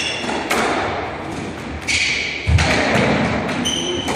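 Squash rally: the ball struck by rackets and smacking off the court walls in a run of sharp, echoing hits, with the heaviest thud a little past halfway. Athletic shoes squeak briefly on the hardwood floor twice.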